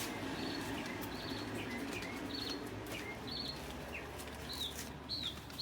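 A small bird chirping over and over: short high calls, each dipping in pitch, about once or twice a second, over a low steady background hum.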